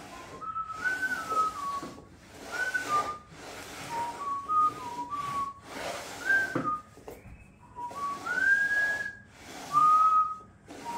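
A man whistling a tune through pursed lips, in short notes that slide up and down, with breathy gaps between phrases.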